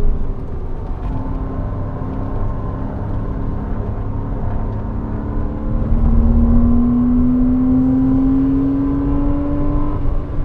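Porsche Cayman 987's flat-six engine heard from inside the cabin on track, running at a steady pitch with road rumble underneath. From about six seconds in it gets louder and its pitch rises steadily as the car accelerates, easing off just before the end.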